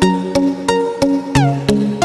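Background music: a repeating pattern of plucked pitched notes, about three a second, with one note sliding down in pitch about one and a half seconds in.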